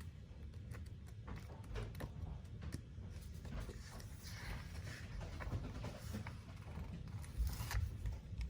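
Light rustling, peeling and tapping of paper stickers and washi tape being handled and pressed onto a planner page, in scattered small clicks and soft rustles.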